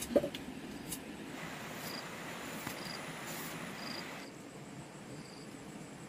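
Short, high-pitched insect chirps repeating every second or so over faint background hiss, with one sharp knock just after the start.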